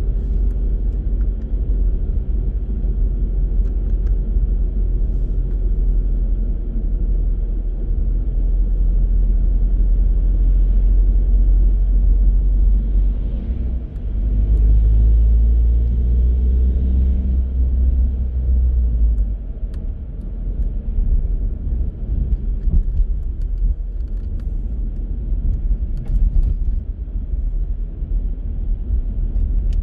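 Car driving on city streets: a steady low rumble of engine and tyres on the road. About halfway through it swells louder with a rising engine note as the car accelerates, then eases back down.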